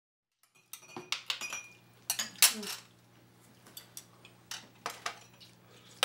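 Spoons and chopsticks clinking and tapping against bowls and dishes at a meal table: a string of sharp, irregular clicks starting about half a second in after a brief silence, the loudest about two and a half seconds in.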